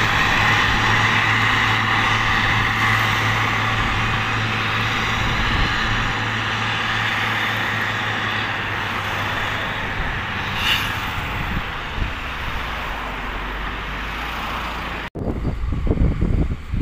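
Caterpillar 140G motor grader's diesel engine running steadily as it grades a crushed-rock road base, growing slowly fainter as the machine moves away. About fifteen seconds in the sound cuts off sharply and is replaced by gusty wind buffeting the microphone.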